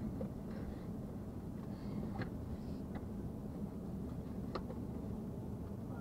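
Steady low rumble of a car driving, heard inside the cabin: tyre and engine noise, with two faint sharp clicks midway.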